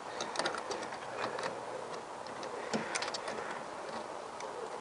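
Small metallic clicks and ticks in a few short clusters: pliers working the spring hose clips on the coolant hoses of a plastic header tank.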